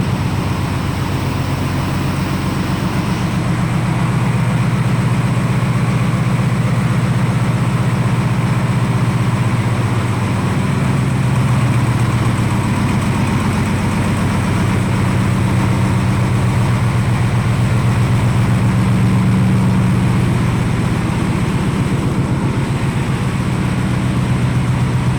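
Reciprocating piston air compressor running steadily, a loud, low, rapidly pulsing machine drone that holds even throughout.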